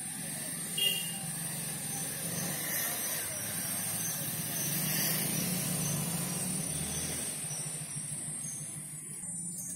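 A motor vehicle passing on a nearby road: a low engine and road noise that swells to a peak about halfway through and fades toward the end, over a steady high hiss. A short click about a second in.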